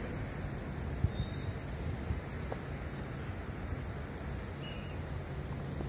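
Steady traffic noise at a busy road junction, with vehicles idling at the lights and faint bird chirps above it.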